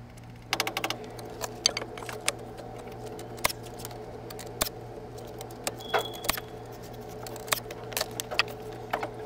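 Cordless nail gun fastening lumber to a basement window frame: sharp, irregularly spaced shots and knocks, with a quick rattle near the start, over a steady hum.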